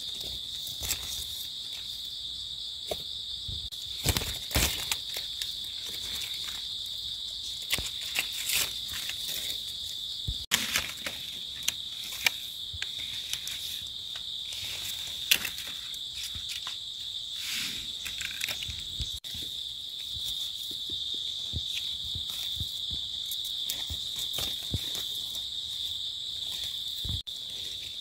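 Steady chorus of insects, a continuous high-pitched buzz, with scattered crackles and clicks over it, the loudest about four seconds in and again around fifteen seconds.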